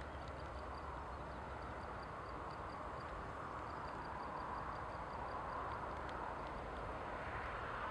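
Outdoor wind ambience: a steady rush of wind with a low rumble, growing slightly louder near the end, and a faint run of high ticks at about four a second through the first few seconds.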